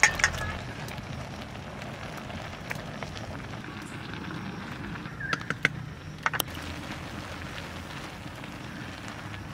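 Steady crackle and hiss of a pot of rice cooking over a wood fire. A splash of water is heard at the start as vegetables are handled in a bowl, and a few sharp clicks come about five to six seconds in as vegetables are set into the rice.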